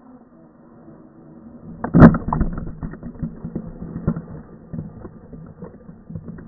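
Traxxas Summit RC truck's motor whining as it drives through water, growing louder as it nears. About two seconds in comes a loud splash, followed by a run of spattering, crackling water while the motor hum carries on underneath.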